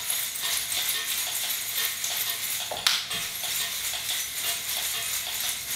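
Metal coins on a belly-dance hip scarf jingling in a quick, steady rhythm as the hips move, with one sharp click about three seconds in.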